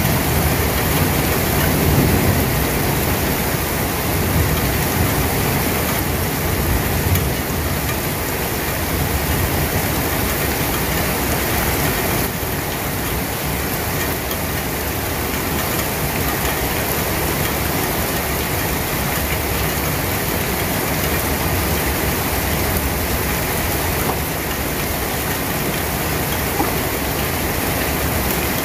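Steady heavy rain, an even hiss, with a low rumble underneath that fades about seven seconds in.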